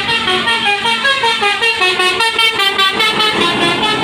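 Tour bus's basuri 'telolet' musical horn playing a melody: a fast run of short notes that step up and down in pitch.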